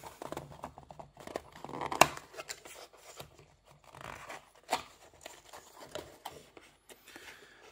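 Thin cardboard box being opened by hand: flaps bent back and rubbed against each other, with scraping and rustling and a few sharp clicks, the loudest about two seconds in.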